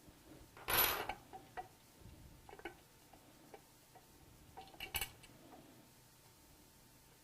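Metal clinks and a short scraping rattle from an Allen wrench being worked on the screws of a pump's backing plate. The scrape comes about a second in, followed by a few light clicks and a quick cluster of clinks about five seconds in.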